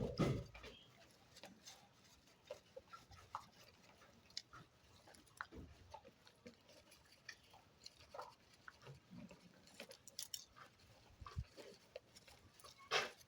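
Goats eating a dry ration of bean chaff and cereal from a feeding trough: irregular small clicks and knocks throughout, with a louder knock at the start and another near the end.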